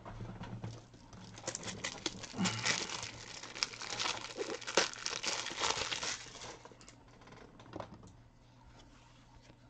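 Plastic wrapping crinkling and rustling as it is handled. The sound is busiest for the first six seconds or so, then dies down to a few faint clicks.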